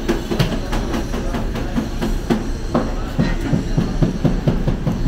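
Busy food-stall kitchen clatter: quick knocks and clinks of utensils and dishes, falling into a run of about four knocks a second in the second half, over a steady low rumble.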